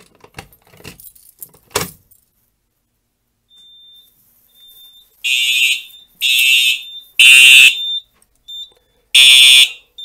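Keys jangling and clicking in a fire alarm pull station's lock, then, about five seconds in, a fire alarm horn sounding the temporal-three evacuation pattern: three short loud blasts about a second apart, a pause, then three more. The horn signals the panel going into alarm from the manual pull station.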